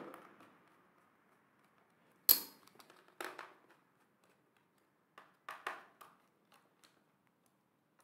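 A sharp click about two seconds in, then a few faint clicks and taps: handling noise from the laptop's bottom cover and small tools as it is put back together.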